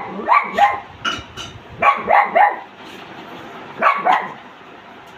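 A puppy barking in short, high yaps that come in quick clusters of two or three, with brief pauses between the groups.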